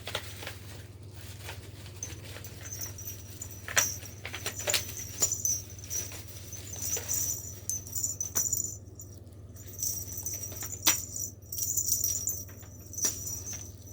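A cat playing with a cat toy: scattered taps, rattles and rustles as it bats and pounces, over a steady low hum.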